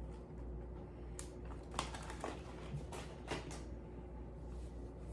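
Foil snack-style pouch being handled and pressed shut: a handful of light, short clicks and crinkles scattered between about one and four seconds in, over a faint steady hum.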